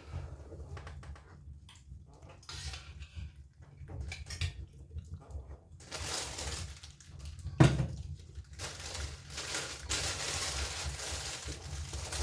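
Pot and cutlery sounds of stew being served and eaten: spoons scraping and clinking against a pot and bowls, with one sharp loud knock about seven and a half seconds in.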